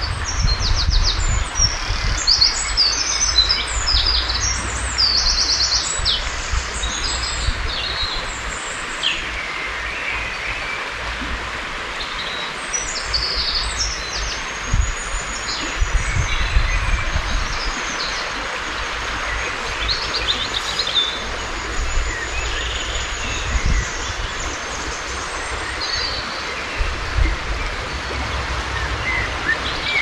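Several woodland songbirds singing at once in spring, an overlapping mix of high chirps, whistled phrases and trills, with one long high trill about halfway through. A steady hiss lies underneath, and there are a few low rumbles.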